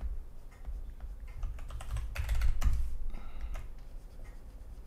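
Irregular clicking of a computer keyboard and mouse during photo editing, in scattered strokes with a small flurry a little after two seconds, over a low steady hum.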